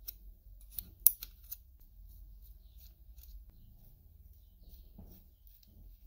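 Steel open-end wrench and hex nut on a fishing reel's threaded shaft giving a few sharp metallic clicks about a second in, one much louder than the rest, as the nut is worked. Faint light ticks follow as the nut is turned by hand.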